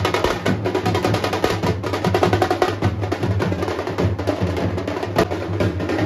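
Procession drum band playing loud, fast, dense drumming, sharp strokes packed close together over a steady bass underneath.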